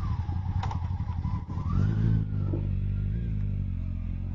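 Sport motorcycle engine running as the bike pulls away from a standstill. The engine note settles to a steady pitch about two seconds in.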